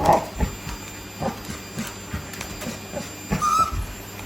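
Excited dog vocalising during vacuum-cleaner play: a short bark right at the start and a high whining yelp about three and a half seconds in, with scattered knocks and scuffling between.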